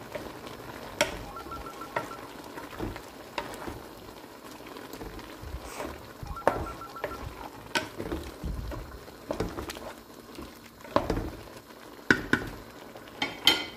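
Wooden spoon stirring chunks of beef, onion and carrot in hot watery liquid in a large aluminium pot, with wet sloshing and irregular knocks and scrapes of the spoon against the pot's sides.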